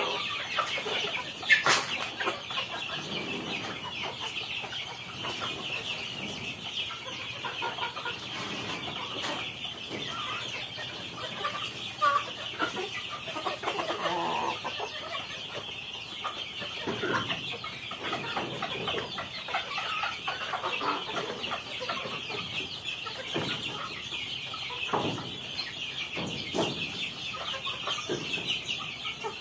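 A flock of native chickens clucking and calling while being fed, over a steady high-pitched drone. A single sharp knock sounds about a second and a half in.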